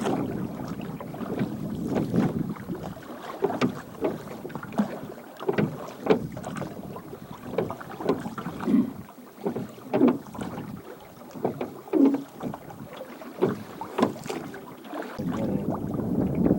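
Water splashing in short irregular strokes, roughly one a second, over a faint steady rush.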